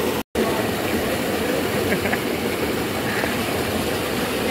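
Fast water in an irrigation channel rushing and churning, a steady low rush. The sound drops out completely for a moment just after the start.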